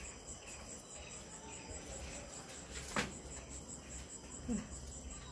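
A cricket chirping steadily, a high pulsed note repeating about five times a second, over a low rumble of wind on the microphone. A single sharp click comes about three seconds in.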